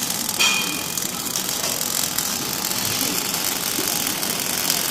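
Steady machine noise in a welding workshop, with one sharp metallic clank that rings briefly about half a second in.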